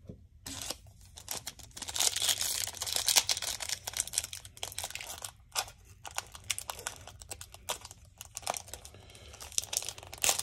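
Upper Deck hockey card pack wrapper being torn open and crinkled, a run of crackling rips that is busiest in the first few seconds.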